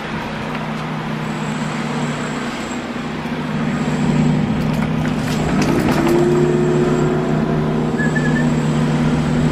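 A motor vehicle's engine running, a steady low hum that grows louder about four seconds in.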